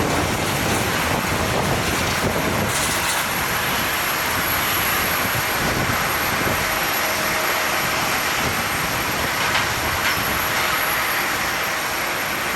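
Jet airliner engines giving a steady, even rush of noise with a thin high whine, mixed with wind noise.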